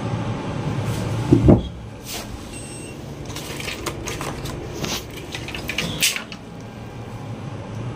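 A single loud knock about a second and a half in, then scattered clicks and rattles of loose circuit boards and wires being handled, over a low steady hum.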